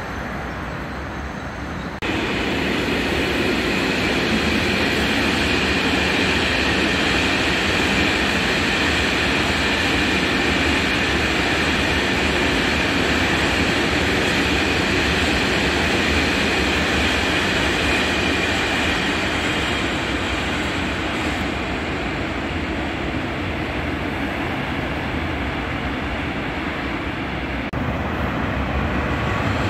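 Freight train wagons rolling past on the rails: a steady rumble and rolling noise with a faint high whine from the wheels. It starts abruptly about two seconds in and eases slightly in the second half.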